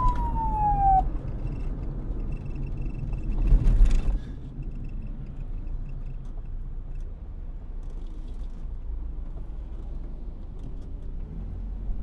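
Police siren sliding down in pitch and cutting off about a second in, over a low rumble. A brief louder rush of noise comes near four seconds in, then the low rumble carries on steadily.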